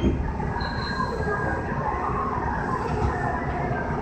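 Osaka Metro 66 series subway train standing at the platform: a steady rumble and hum from its equipment, with faint wavering higher tones and a brief high whine about half a second in.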